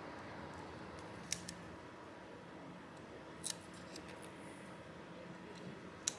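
A few light, sharp clicks and ticks of small tools and parts being handled while a part of a tablet is reattached.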